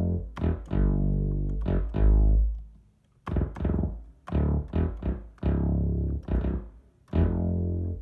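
Akai MPK Mini Play's built-in synth bass sound, octave shifted down, playing a run of about a dozen low notes. Some notes are short plucks and some are held for about a second, with a brief pause about three seconds in.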